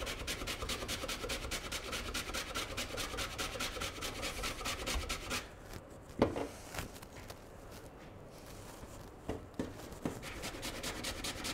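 Horseradish root grated on a stainless-steel box grater: rapid, even rasping strokes that stop about five and a half seconds in. A single knock follows, then a few faint clicks.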